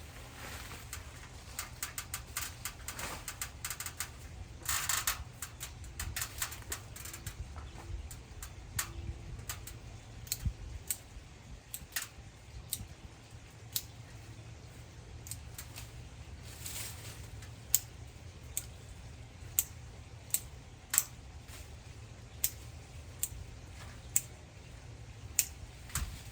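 Irregular sharp clicks and snips of branches being trimmed, with short bursts of rustling about five and seventeen seconds in.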